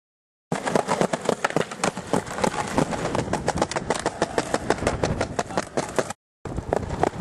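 Skateboard rolling over tiled pavement, its wheels clacking rapidly and evenly over the tile joints. The sound breaks off for a moment near the end, then carries on.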